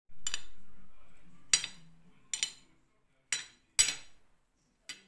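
A metal spoon clinking against a ceramic plate as it mixes food: six sharp clinks, each with a bright ring, the first ringing longest.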